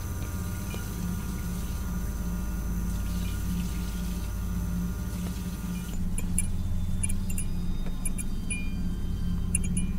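Horror-film soundtrack: a low, steady droning tone under a bathroom tap running water. About six seconds in the running water stops, and faint high tinkling clicks come in over the drone.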